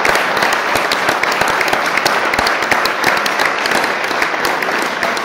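Audience applauding steadily: a dense, continuous patter of many hands clapping.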